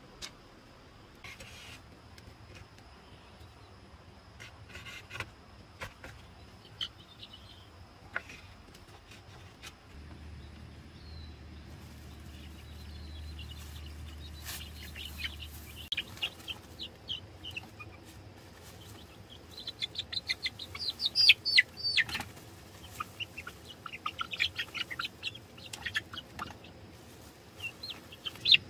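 Baby chicks peeping inside a sack, their high-pitched cheeps growing thicker and louder from about halfway on. Early on, scattered rustles and light knocks as the sack is handled.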